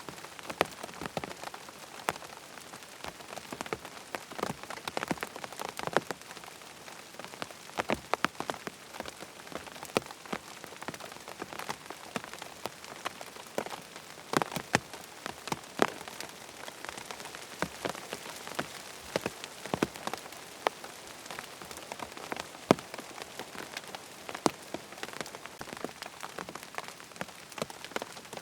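Steady rain falling on a tent, a constant hiss with many irregular, sharper drops striking the fabric.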